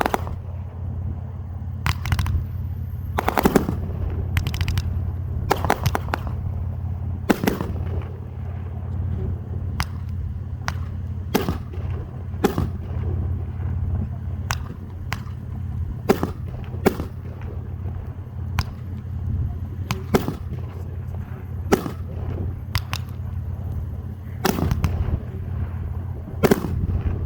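Fireworks going off: irregular sharp bangs, roughly one every one to two seconds, some close together, over a steady low hum.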